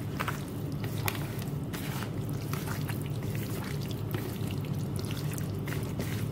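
Raw chicken cubes squelching as a gloved hand mixes them into a yogurt-and-oil marinade in a bowl: scattered wet clicks and squishes over a steady low hum.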